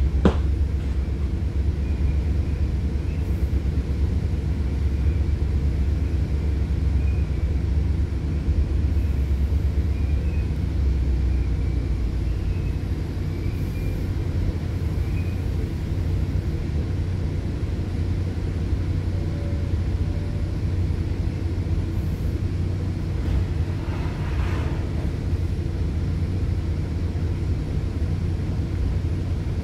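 Steady low rumble of a New Mexico Rail Runner passenger coach rolling along, heard from inside the car, with a single sharp click right at the start.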